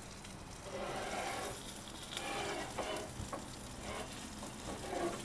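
A NY strip steak sizzling in a hot Lodge cast iron skillet.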